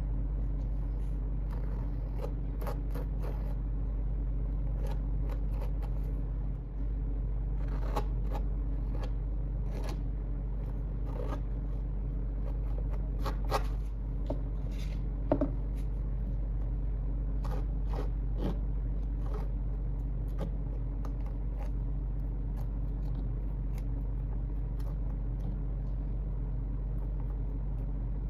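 Metal palette knife scraping and spreading thick texture paste over a gritty, textured canvas in short, irregular scratches, over a steady low background hum.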